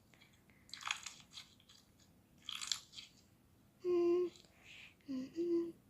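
Slime being squeezed and kneaded by hand, giving two bursts of crisp, crackling clicks. A few short hummed voice-like notes follow near the end.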